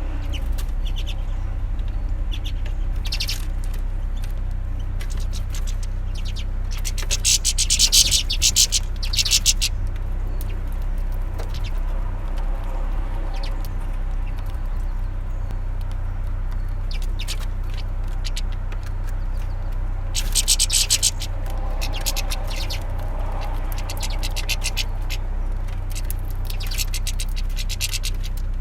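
Small finches, goldfinches and redpolls, calling in three short bursts of rapid chattering notes, over a steady low hum.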